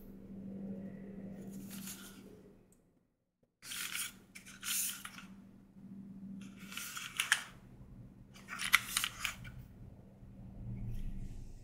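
An aluminium keyboard case being handled and moved about: bursts of scraping and rubbing with a few sharp knocks, over a steady low hum. The sound cuts out briefly about three seconds in.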